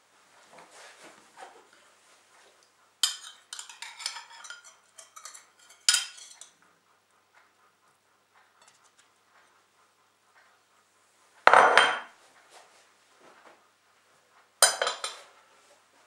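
A table knife scraping and clinking against china plates as a fried egg is slid off one plate onto another, in a few short clusters of clinks. The loudest is a clatter with a low knock about two thirds of the way in, and another clatter follows near the end.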